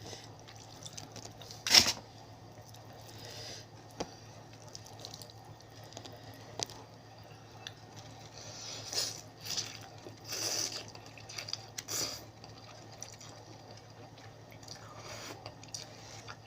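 Wet mouth sounds of someone eating spicy seafood papaya salad: chewing, smacking and slurping, with one sharp click about two seconds in and a few louder bursts around the middle.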